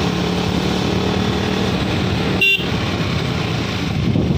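KTM motorcycle engine running at a steady pace while riding, with a short horn toot about halfway through.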